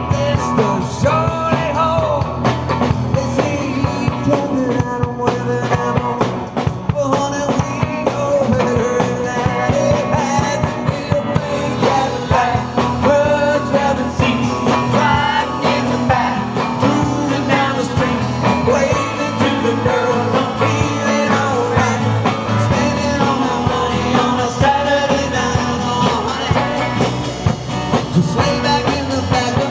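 Live rock band playing with a lead singer, electric guitars, bass and a drum kit.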